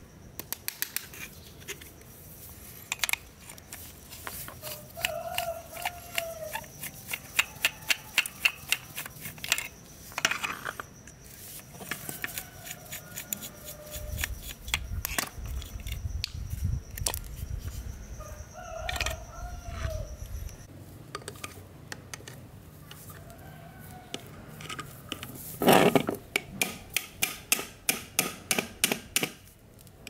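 Sharp clicks and taps of a screwdriver and pliers working on the small metal parts of an old table fan's motor and gear housing, with one loud knock near the end. A chicken clucks a few times in the background.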